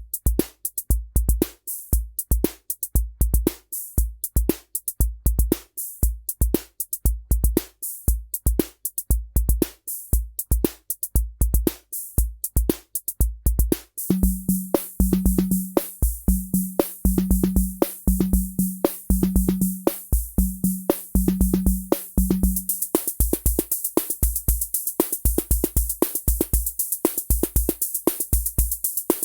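Korg SR-120 Mini Pops analog drum machine playing a 'Rock' rhythm pattern: low bass-drum thumps and sharp clicks at a steady beat. About halfway in the pattern changes, adding a hissing cymbal and a pitched drum tone. Near the end the pitched tone drops out and the cymbal hiss grows heavier.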